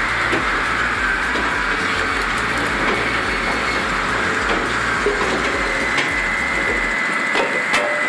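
Firewood processing machinery running with a steady mechanical clatter, with a few sharp knocks near the end.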